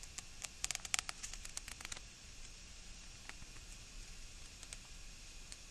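A picture-book page being turned by hand: a quick run of crackling paper clicks and rustles in the first two seconds, then faint hiss.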